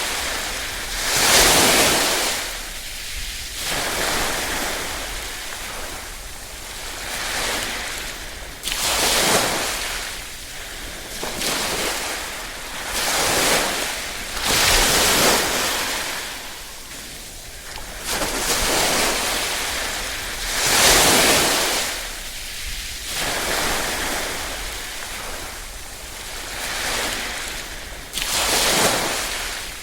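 Small waves (sazanami, gentle ripples) washing in over and over. Each wave is a hiss that swells and then fades, one every few seconds, with a handful of louder washes among them.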